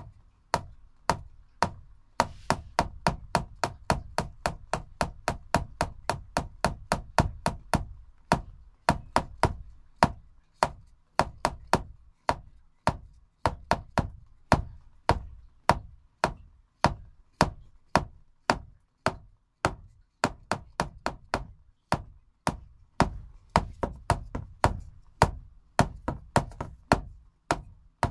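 Shaman frame drum beaten steadily with a stick, about three strokes a second.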